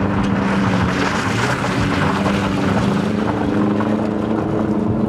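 Car engine held at high revs while the sedan drifts in circles on dirt, its drone rising slightly in pitch near the end, with a rush of noise from the spinning tyres and dust.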